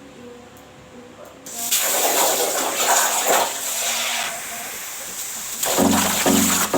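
CNC plasma cutter torch firing: a sudden loud hiss of rushing air and arc about one and a half seconds in, running on while it cuts.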